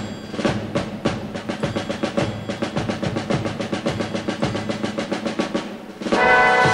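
Music: a continuous snare drum roll of rapid, even strokes, with a brass chord coming in near the end.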